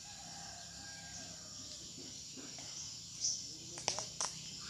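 Outdoor ambience of a steady, high insect drone with occasional chirps, under a faint steady low hum. About four seconds in come three sharp clicks in quick succession.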